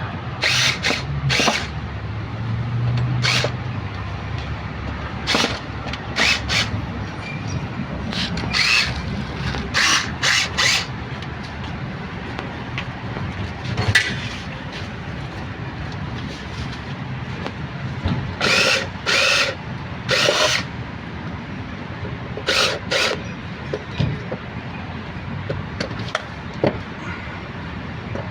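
Power tool run in short bursts, often two in quick succession, over steady traffic noise.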